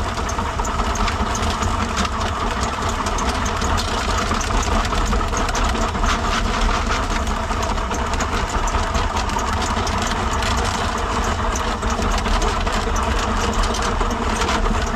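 Electric drain-cleaning machine running steadily, its steel auger cable spinning and clattering inside a cast-iron house drain as it is fed in to clear a clog.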